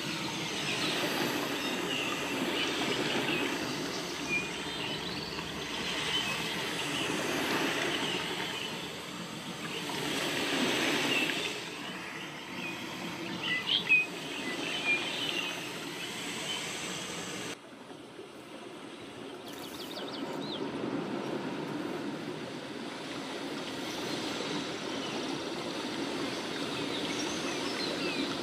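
Outdoor background noise with birds chirping now and then; the level drops abruptly about two-thirds of the way through.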